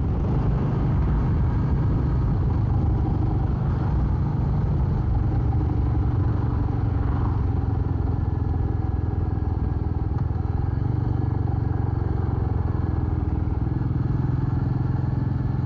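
Royal Enfield Meteor 350's single-cylinder engine running steadily.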